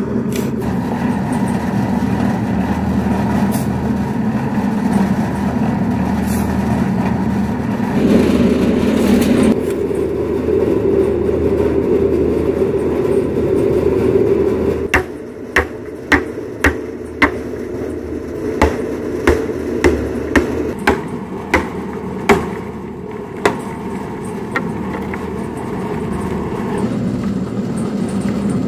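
Concrete mixer's motor running steadily, growing louder for a moment near the third of the way through, then easing off about halfway. After that come about a dozen sharp, separate knocks over roughly eight seconds.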